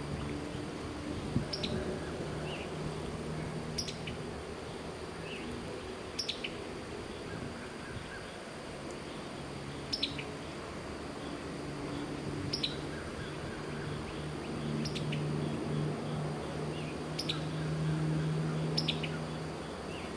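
A bird repeating a short, high, downward-slurred call about every two to three seconds, over a low, steady hum.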